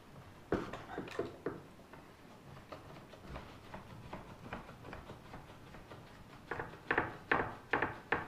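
Irwin one-handed bar clamp being tightened on a wooden desk joint: a few sharp clicks about half a second in, then a quick run of about six clicks near the end as the trigger handle is squeezed repeatedly. The joint is extra tight.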